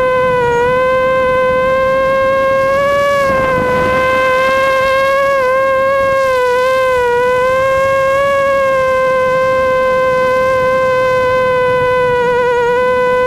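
Immersion Vortex FPV racing quadcopter's brushless motors and propellers whining at a steady, high pitch, with small dips in pitch a few times and a brief wavering near the end.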